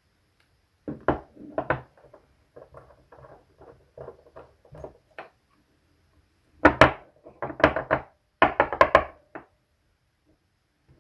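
Hand tools and a metal microphone body being handled and set down on a wooden desk: a run of knocks and clatters with light ticks in between, loudest in a quick cluster of knocks about two-thirds of the way through.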